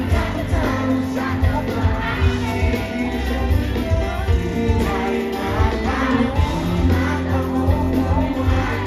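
Live pop band music with singing, over a steady bass and drum beat.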